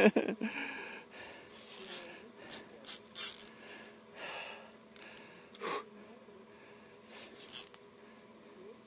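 A person's short breaths and sniffs at irregular intervals, faint, with no speech.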